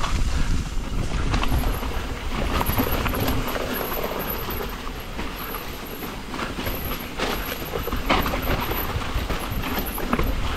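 Yeti SB150 full-suspension mountain bike riding a rough singletrack trail: tyres on dirt, with the frame, chain and mount knocking and rattling over roots and rocks above a steady low rumble.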